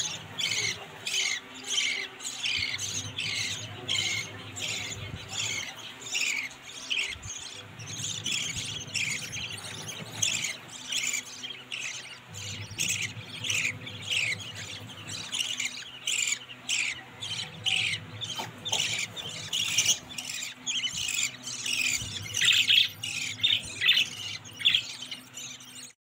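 Budgerigars in the nest calling as the adults feed the chicks: a steady stream of short, high, down-slurred chirps, several a second, getting louder near the end.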